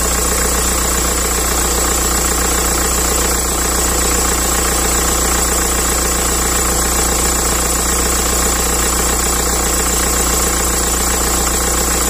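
BMW engine idling steadily with a steady high squeal from the accessory drive belt, the cold-weather squeal that the owner says could come from the V-belt or from its tensioner pulley.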